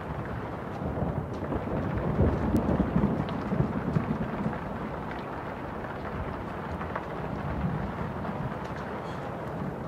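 A low rumbling noise over a steady hiss, swelling louder about one to four seconds in and then settling.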